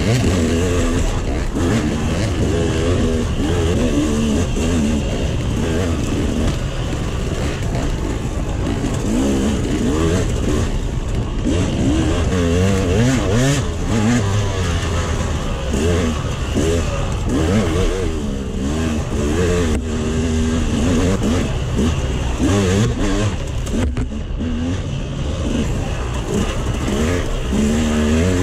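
KTM 200 XC-W's single-cylinder two-stroke engine, revving up and down over and over as the dirt bike is ridden hard along a tight trail. Its pitch rises and falls with each throttle change.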